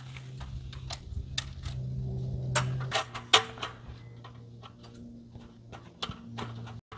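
Folding camping table being unfolded and set up: a run of clicks, knocks and rattles from its frame and slatted top, the loudest knock about three seconds in. A steady low hum runs underneath.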